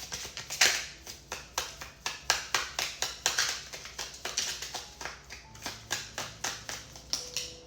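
A deck of oracle cards being shuffled by hand: a quick, irregular run of crisp card slaps and taps, about three or four a second, with brief swishes.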